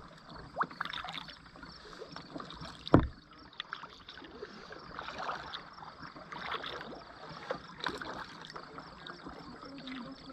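Kayak paddling on a calm river: water splashing and dripping off the paddle blades in soft, uneven splashes, with one sharp knock about three seconds in.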